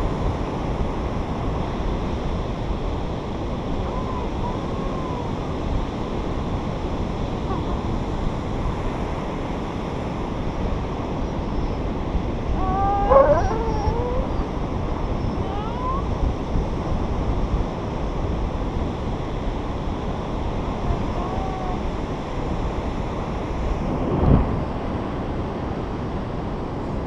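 A pit bull–boxer mix whining in short high, wavering glides, loudest about halfway through, over steady wind on the microphone and breaking surf. A single thump comes near the end.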